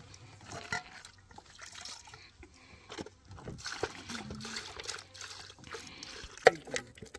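Water poured from a plastic jerrycan into a metal cooking pot, splashing and trickling for a couple of seconds from about halfway through, among light knocks of the can and pot. A single sharp knock near the end is the loudest sound.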